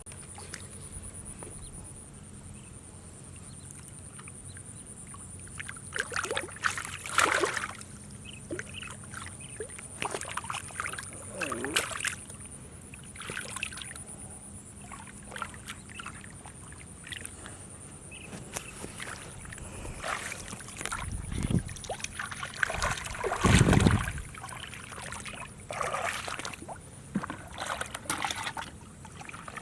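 Shallow water sloshing and splashing in irregular bursts, as if stirred by hands or feet. The bursts come about six seconds in, again around ten to fourteen seconds, and most heavily from about twenty seconds. A faint steady high tone runs underneath.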